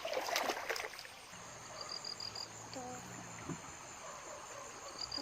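Water splashing and trickling for about a second, then a steady high insect whine with short repeated chirps.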